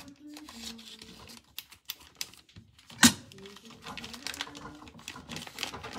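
Kitchen scissors snipping through a plastic poultry bag, with the plastic crinkling: a run of irregular sharp clicks and rustles, and one loud knock about three seconds in.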